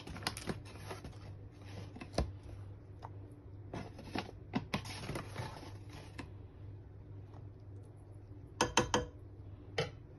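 Kitchen handling sounds: a spoon scraping and tapping against a steel saucepan while ragi powder is added, with scattered clicks and rustles and a quick run of sharp taps near the end, over a steady low hum.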